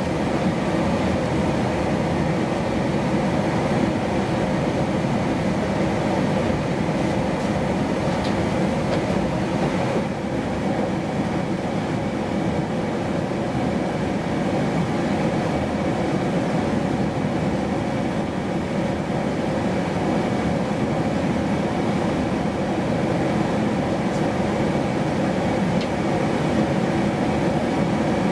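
Steady drone of an Airbus A380's engines and rushing air, heard inside the cabin during the descent, with faint steady tones running through it.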